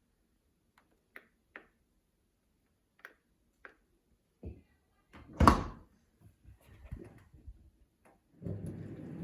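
Bosch Serie 4 dishwasher: a few light clicks, then a loud thud about five and a half seconds in as the door is shut, and a few smaller knocks. From about eight seconds in comes a steady rush as the machine starts its wash and fills with water.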